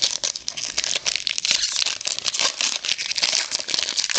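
Crinkling of a trading card pack wrapper as cards are handled, a dense run of irregular crackles.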